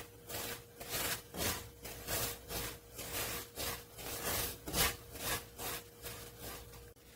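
A silicone spatula scrapes and stirs semolina (rava) dry-roasting in butter in a non-stick kadhai, in rhythmic strokes about two or three a second. The rava is being roasted until light golden.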